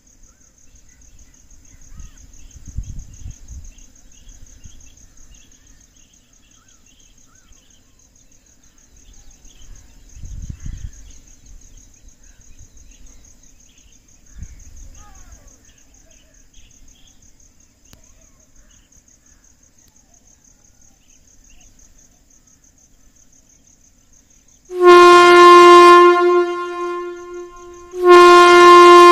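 Insects buzzing in a steady, high, pulsing drone with scattered bird chirps. Near the end a loud horn sounds two long blasts of one steady pitch, each just over a second, about three seconds apart.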